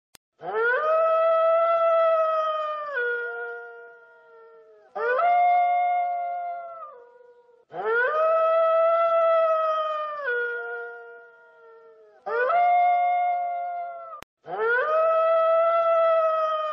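Wolf howling: five long howls a second or two apart, each rising quickly to a held note and then dropping to a slightly lower pitch at its end.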